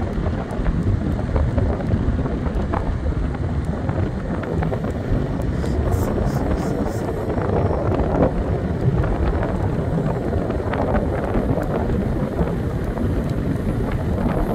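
Steady wind buffeting on the microphone of a moving scooter, mixed with the rumble of the ride.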